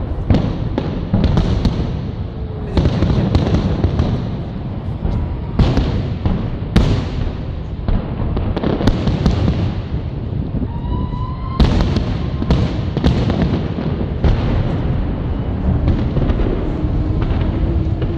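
Fireworks salute: aerial shells bursting in quick succession, many sharp bangs over a continuous low rumble, with a brief rising whistle near the middle.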